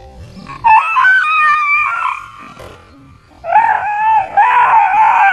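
A dog howling in two long, wavering calls: the first about a second in, and the second starting about three and a half seconds in and running on.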